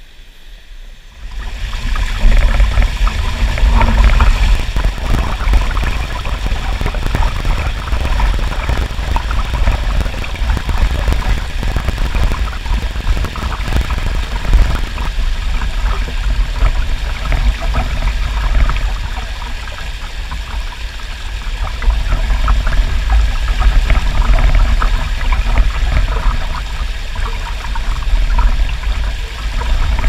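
Rushing mountain-stream water running steadily over rocks, with a deep rumble beneath it. It comes in sharply about a second in.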